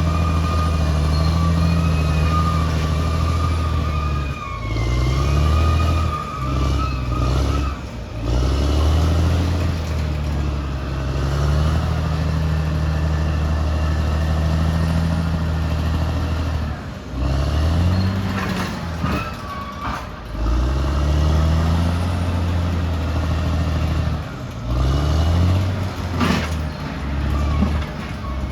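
Caterpillar D6R XL bulldozer's diesel engine working under load. Its pitch dips and climbs back several times as the throttle and load change. A high steady whine runs through the first several seconds, and a few sharp metallic knocks come in the second half.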